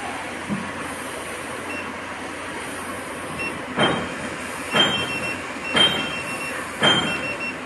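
Steady background hum, then four short electronic beeps with clicks about a second apart from the touchscreen control panel of an EMS body-sculpting machine as its intensity is stepped up.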